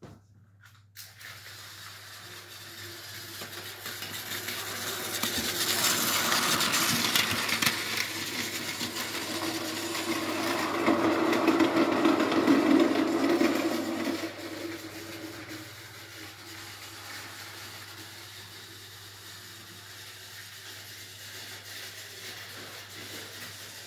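Battery-powered Tomy Plarail toy train running on plastic track: a small motor whirring over the rattle of wheels and joints. It grows louder as the train approaches, is loudest about halfway through, then drops back to fainter steady running after about fourteen seconds.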